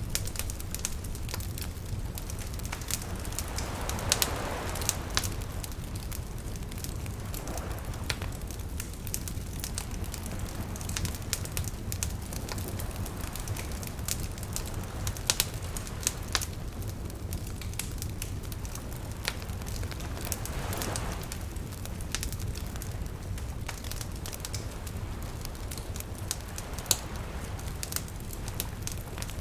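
Wood campfire crackling with frequent sharp pops, over small waves washing softly ashore in a few slow swells.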